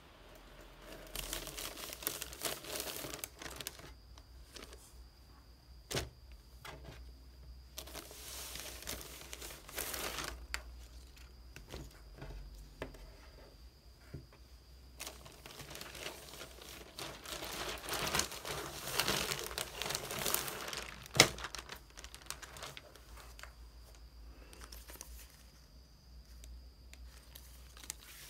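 Thin plastic shopping bag crinkling and rustling in several bouts as folded clothes are pulled out and handled, with a few sharp taps, the loudest about three-quarters through.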